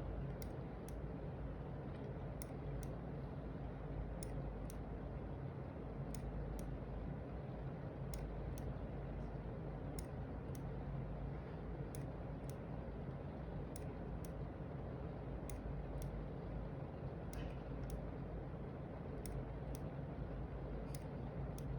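Logitech G703 gaming mouse buttons clicking: short sharp clicks, mostly in pairs about half a second apart, a pair every second or two, over a faint steady low hum.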